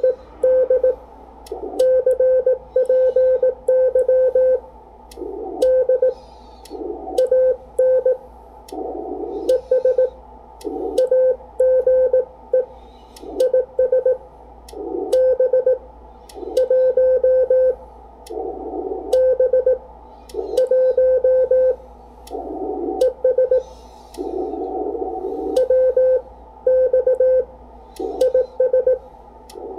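Morse code sent by hand on a paddle key, heard as the ICOM IC-7300's steady single-pitch CW sidetone keyed in dots and dashes. Short bursts of hiss from the 40-metre band come up in the gaps between characters and words as the radio switches back to receive, with faint clicks from the paddle.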